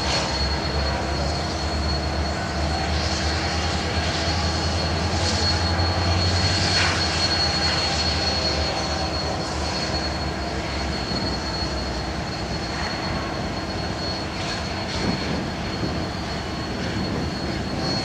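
Locomotives standing and idling: a steady low engine rumble, louder in the first half, with a constant high whine and a hiss of escaping steam.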